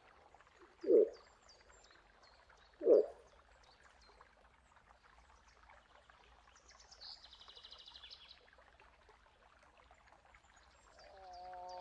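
Moose giving two short, deep grunts about two seconds apart, with faint bird chirps behind. Near the end a long, drawn-out call with a steady pitch begins.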